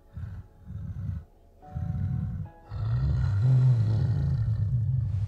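A large creature's deep, wordless vocal sounds, over music. Short low grunts come in the first half, then a little under three seconds in a long, deep rumbling call that rises and falls in pitch.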